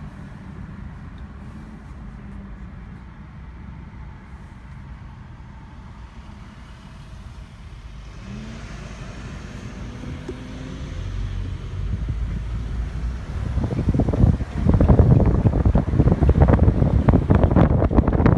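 Car driving, with steady low road and engine rumble heard from inside the cabin. From about eleven seconds in it grows louder, and near the end it turns into loud, irregular buffeting and rattling.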